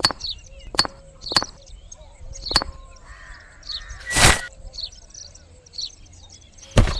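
Birds calling, with a series of sharp clicks or knocks and a short loud burst of noise about four seconds in.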